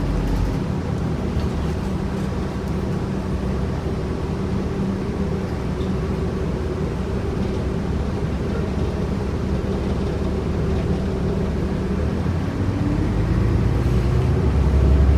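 Inside a New Flyer D40LF city bus under way: the engine and drivetrain drone steadily with a low hum, then grow louder near the end as the bus pulls harder. The uploader calls this bus's transmission bad.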